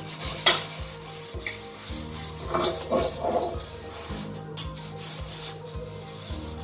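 A metal cooking pot being scrubbed by hand at a sink, a steady scouring rub. There is one sharp knock about half a second in, and a few clattering knocks of the pot around the middle.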